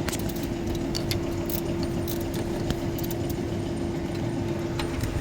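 Light metallic clinks and jingles, scattered and irregular, over a steady mechanical hum with a constant drone.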